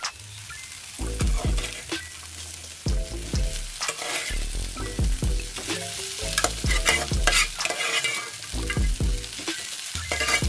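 Boiled beef and onions sizzling in a frying pan, stirred and scraped with a wooden spoon, with repeated clacks of the spoon against the pan.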